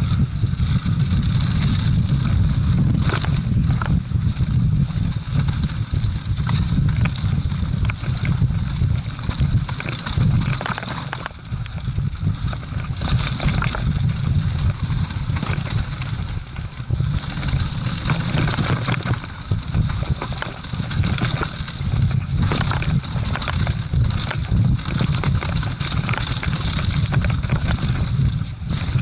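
Mountain bike riding fast down a rough dirt trail, heard from a camera on the handlebars: a constant low wind rumble on the microphone, with frequent knocks and rattles as the bike bounces over the ground.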